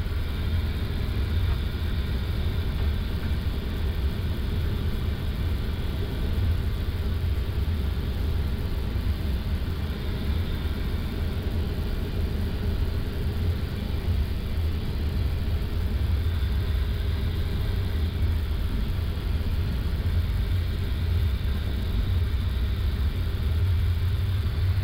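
Steady low rumble inside an Airbus A330-200 flight deck while the airliner taxis, with a faint steady whine over it.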